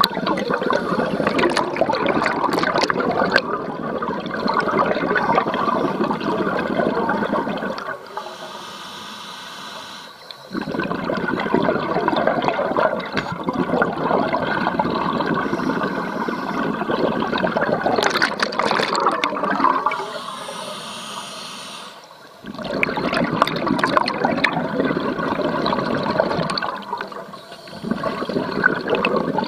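A scuba diver's open-circuit regulator heard underwater: long bursts of bubbling exhaled air, broken twice by a short, quieter hiss of an inhalation through the regulator, with a brief lull near the end.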